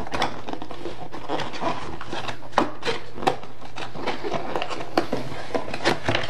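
Hands handling a cardboard box and its paper insert: irregular rustles and light knocks over a steady low hum.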